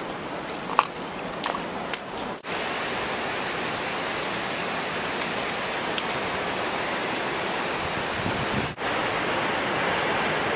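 Steady rushing roar of Upper Yosemite Fall's water. In the first two seconds a few sharp clicks of footsteps on rocky gravel trail. The noise breaks off for an instant twice, about two and a half seconds in and near nine seconds.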